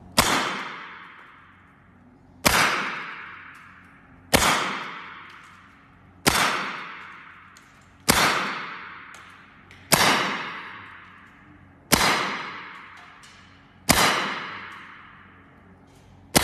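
Evanix semi-automatic PCP air rifle in .25 calibre firing 25.39-grain pellets, nine shots about two seconds apart, the last just at the end. Each sharp report rings and fades over a second or so in the room. The reservoir is at about 100 bar, partway down the gun's 250-to-65-bar working range.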